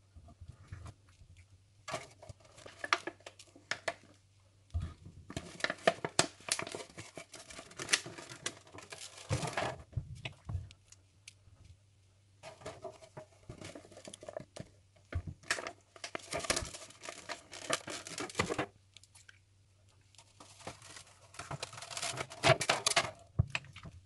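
Crinkling and tearing noises in four stretches of a few seconds each, over a low steady hum.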